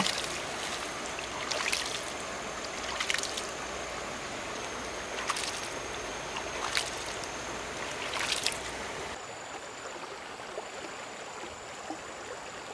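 Water running with a series of splashes about every one and a half seconds, five in all; about nine seconds in the splashes stop and the water sound thins out.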